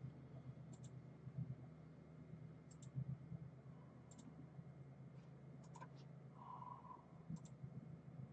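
Faint computer mouse clicks, mostly quick double clicks, coming about every one and a half seconds over a low steady hum.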